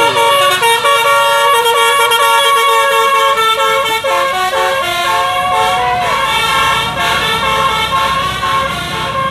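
Bus 'telolet basuri' musical horn playing a tune: several horn tones sounding together and stepping from note to note, with a falling slide about half a second in and a longer held note near the middle.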